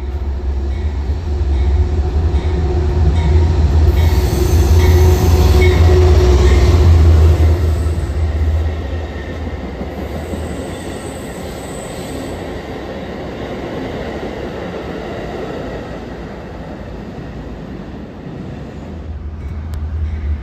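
Amtrak passenger train passing at close range with a heavy low rumble, its wheels squealing in high steady tones, loudest about four to seven seconds in. The noise then eases to the quieter roll of the passenger cars going by, and a low rumble builds again near the end.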